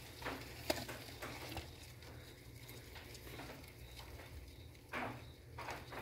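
Faint light taps in the first couple of seconds and a short rustle about five seconds in, from feeder insects being scattered into a frog enclosure and handled over a mesh floor.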